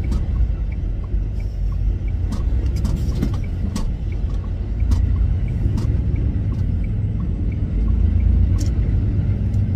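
Semi truck cab while driving: a steady low engine and road rumble, with scattered light clicks and rattles.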